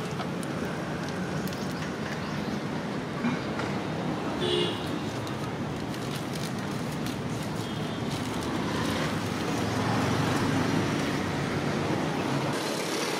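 Steady road-traffic noise with scattered small clicks, swelling a little about ten seconds in.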